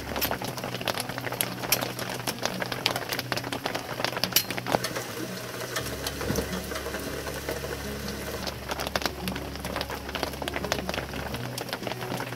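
Rain pattering, with many sharp drop ticks throughout, and canvas fabric rustling as it is handled and unfolded.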